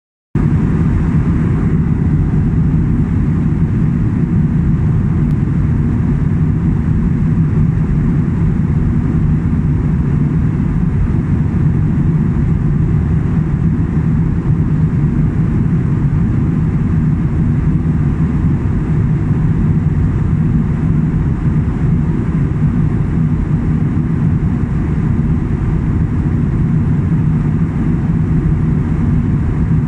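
Steady low rumble of airliner cabin noise in flight, the engines and rushing air heard from a window seat of an Airbus A320.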